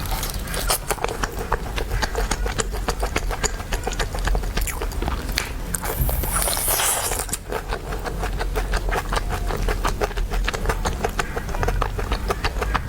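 Chicken being bitten and chewed close to the microphone: rapid wet crackling and crunching clicks throughout, with a louder crunch or rustle about six seconds in.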